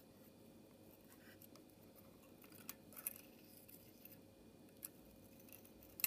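A handful of small, faint metallic clicks and scrapes as a thin metal rod works against the contact spring inside a Honda Fit ignition coil's boot, the sharpest click near the end, over a faint steady hum.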